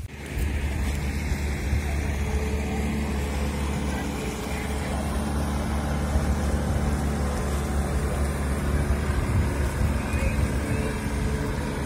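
Outboard motor of a covered passenger boat running steadily as it passes along the river, a constant low engine hum.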